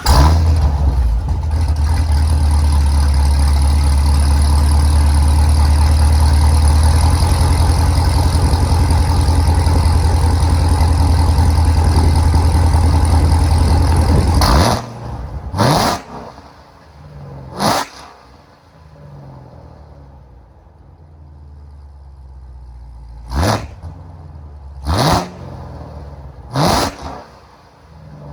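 Supercharged 6.2 L LT4 V8 of a Corvette C7 Z06 with long-tube headers, an off-road X-pipe and stock mufflers: running loud at a high, steady idle just after starting. About fifteen seconds in it settles to a lower, lumpier idle and is then blipped sharply five times, each rev rising and falling quickly.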